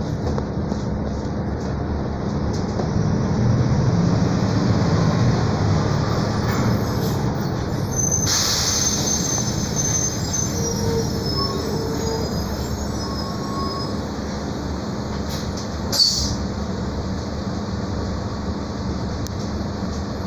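Cabin noise of a Mercedes-Benz O-500 U city bus under way: steady engine and road rumble with rattling, a high-pitched squeal from about eight to twelve seconds in, and one brief sharp sound about sixteen seconds in.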